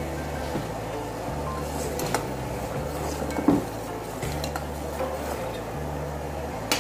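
A metal spoon stirs boiling sugar syrup in a steel pot, bubbling steadily, with a few sharp clinks of the spoon against the pot about two seconds in, midway and near the end.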